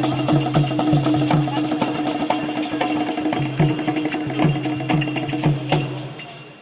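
Music with a steady percussion beat over held tones, stopping shortly before the end.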